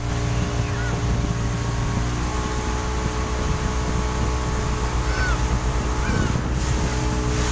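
Yamaha 40 hp outboard motor driving a speedboat at a steady cruising speed, its even engine drone under the rush of wind and water past the hull.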